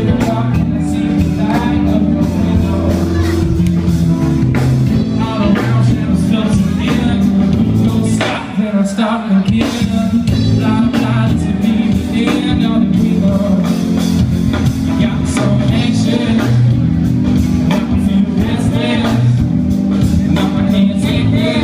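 Live band playing rock music: electric guitar, keyboard and drums with a full bass end, which drops away briefly about eight seconds in before the band comes back in.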